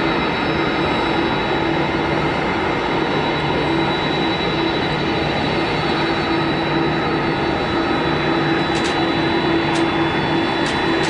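Steady drone of aircraft engines, with a few short clicks near the end.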